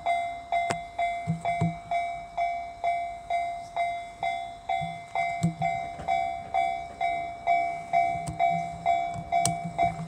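Japanese railway level-crossing warning bell ringing its 'kan-kan' chime, about two strokes a second, each stroke a clear ringing tone that fades before the next. This signals that a train is approaching the crossing.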